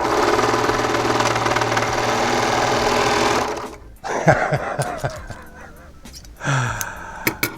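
White Speedy Lock serger running at speed with a steady hum for about three and a half seconds, then stopping: its first test run after being taken apart and rebuilt to cure its seizing. Fainter, irregular sounds and a few clicks follow.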